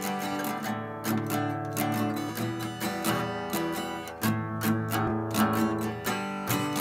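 Epiphone acoustic guitar being strummed, chords ringing out in a steady strumming rhythm, with a change of chord about four seconds in.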